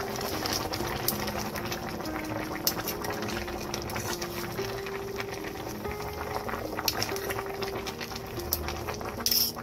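Braised pork ribs in sauce simmering and bubbling in a stainless steel pan, with scattered sharp clicks and scrapes from metal tongs as the ribs are turned over.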